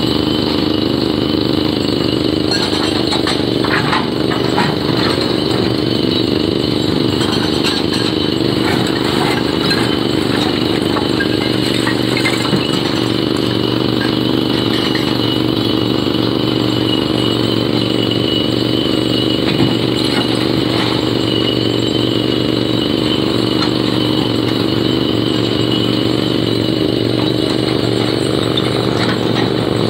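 Excavator's diesel engine running steadily under load, with scattered clanks and knocks from the machine at work.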